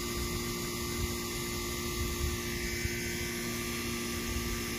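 A steady, even hum of a few fixed tones over a constant hiss.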